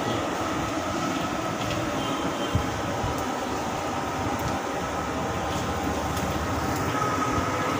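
Batter-coated octopus pieces deep-frying in hot oil in a steel wok over a gas burner: a steady sizzle and rumble, with a few faint clicks.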